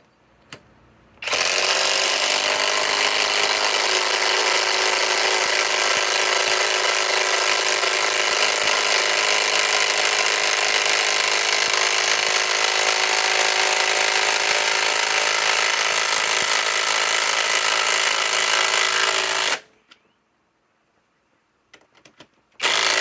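Kobalt 24-volt right-angle impact wrench hammering steadily for about eighteen seconds as it drives a 6-inch timber screw into wood, stopping abruptly, then one short burst near the end.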